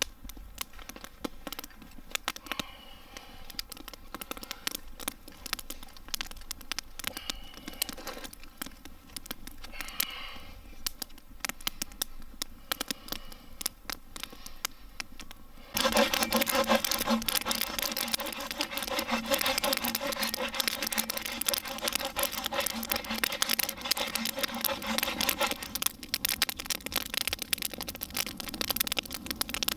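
Small campfire of damp branches crackling and popping, with quick irregular clicks. It is fairly quiet at first, then turns suddenly much louder and denser about halfway through.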